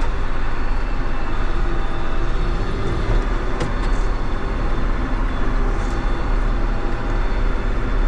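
Farm tractor engine running steadily under load, pulling a hay mower through a field.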